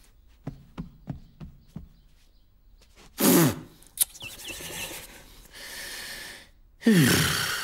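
A man's wordless vocal noises: two loud grunts falling in pitch, one about three seconds in and one near the end. Before them comes a run of light taps, and between them a short breathy hiss.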